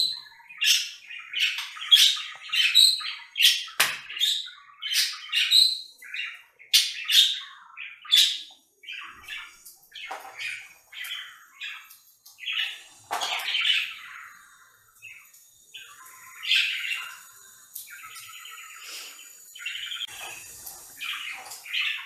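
Budgerigars chirping: a fast run of loud, sharp chirps for the first eight seconds or so, then softer continuous warbling chatter broken by a few louder calls.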